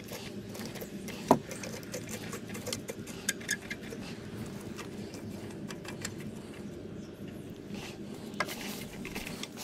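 Diving regulator hoses and their metal fittings being handled: scattered small clicks and rattles, with one sharp knock about a second in.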